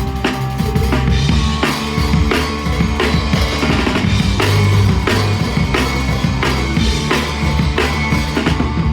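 Live punk rock band playing with no singing: a drum kit, with kick and snare strikes, keeps a steady driving beat under sustained bass and electric guitar.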